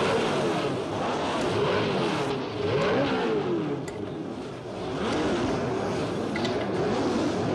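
Formula One racing car engines revving, several at once, their pitches rising and falling over one another.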